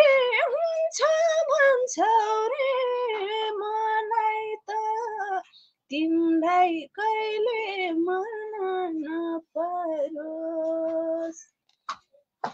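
A woman singing a Nepali lok dohori folk song unaccompanied, in long, wavering held notes with short pauses between phrases. The singing stops about a second before the end, leaving a faint click or two.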